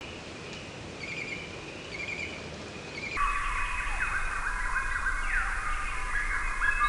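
Birds chirping: a short high phrase repeated about once a second, then, about three seconds in, an abrupt cut to a louder, denser chorus of whistling calls that slide up and down.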